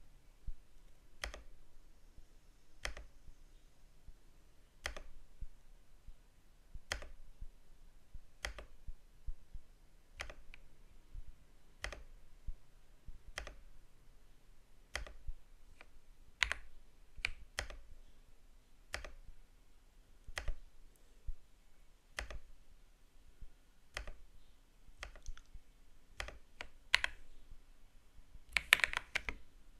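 Keyboard keys pressed one at a time, each a sharp clack about every second and a half, then a quick flurry of typing near the end.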